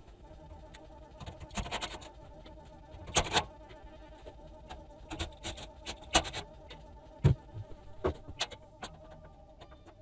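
Irregular clicks, knocks and rustles of hands and objects being handled in a cramped closet, with a couple of sharper knocks past the middle, over a faint steady hum.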